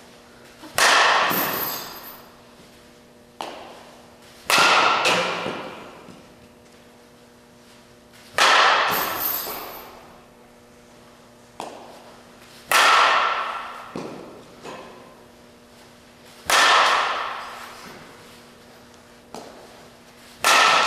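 Softball bat hitting pitched balls six times, about every four seconds: each hit a sharp, ringing ping that dies away over a second or so in a large hall. A faint click comes about a second before each hit.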